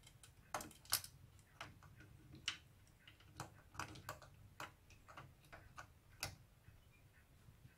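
Faint, irregular light clicks and taps of small plastic and metal parts as the loading motor and plastic gear block of a Victor BR-8600 VCR mechanism are handled and set into place, the sharpest about a second in and near six seconds.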